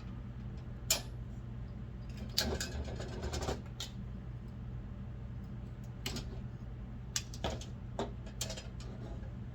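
Handling noises from a tin Dietz hurricane oil lantern: scattered light clicks and clatters of its metal parts, with a cluster about two to three seconds in and several more near the end, over a steady low electrical hum.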